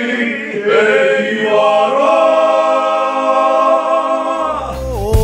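A group of boys' voices singing a Māori song together, unaccompanied, ending on long held notes. Near the end the singing stops and recorded music with a deep bass and a beat comes in.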